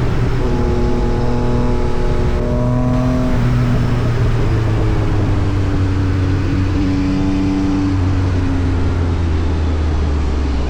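Yamaha MT-09 SP's inline three-cylinder engine running through an Austin Racing aftermarket exhaust. Its pitch holds steady, drops about three and a half seconds in, then falls slowly toward the end.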